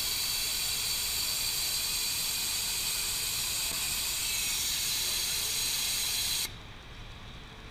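Forenta 604AFL steam-air form finisher jetting steam up through a dress on its form: a loud, steady hiss that cuts off suddenly near the end.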